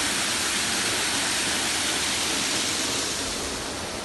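Steady rushing noise, easing a little about three seconds in.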